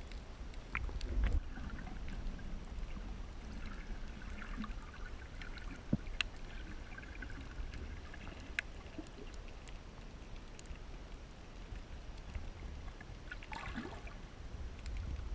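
Water sloshing and gurgling, with a steady low rumble and a few sharp clicks.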